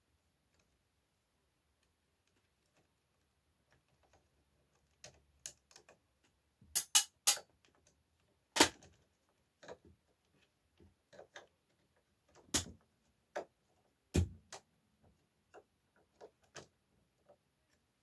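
Sharp plastic clicks and taps from the swing-motor housing and wiring connector of a Mitsubishi room air conditioner being handled while the vane swing motor is replaced. About seven seconds in there is a quick run of three loud clicks, followed by single sharp clicks spread through the rest, with fainter ticks between them.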